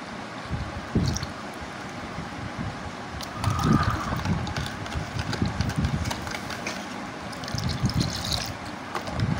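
Milk being poured into sugar water in a plastic bowl and stirred with a steel spoon to mix lassi: liquid pouring and splashing, with a few light knocks of the spoon against the bowl, and pouring again near the end.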